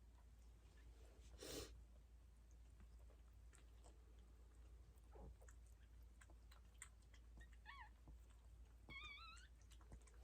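Faint, high, wavering squeaks of newborn Yorkshire terrier puppies: two short cries near the end. Between them come scattered faint wet clicks of the mother dog chewing and licking after whelping, and a brief breathy noise near the start.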